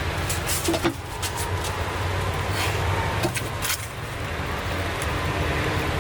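Pencil drawing straight lines on paper, a few short scratchy strokes, over a steady low hum.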